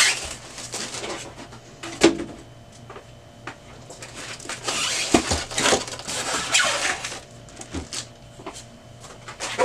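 Plastic and foam packing material rustling and crinkling as it is pulled off a new laser printer, with scattered clicks and a sharp knock about two seconds in.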